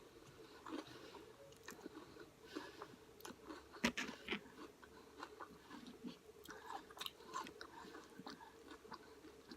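Chewing and mouth sounds of a person eating a chicken and brown rice bowl, many small irregular smacks and clicks, with one sharper click about four seconds in.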